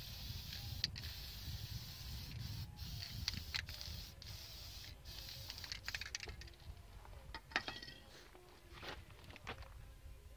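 Scattered light metallic clicks and taps as a copper-coated head gasket is handled and set onto the block deck of a Caterpillar 3508 V8 engine, over a low steady rumble.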